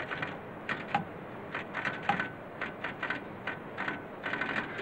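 Keypunch machine punching holes in a punched card as the operator types on its keyboard: irregular runs of sharp mechanical clacks, a few per second.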